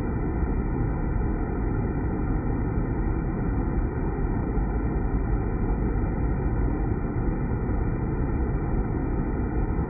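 Water spraying and splashing into the pool inside a deaerator's steel tank: a steady, low rushing with no breaks, made hollow by the echoing steel vessel.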